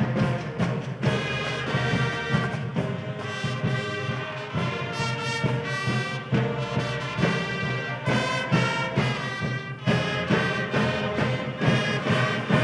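A university sports (pep) band playing a brass-led tune, with percussion hits marking the beat.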